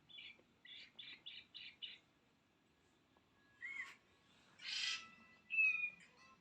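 High-pitched mewing of a young kitten: a quick run of about six short mews in the first two seconds, then after a pause a few louder, longer cries, the loudest about five and a half seconds in.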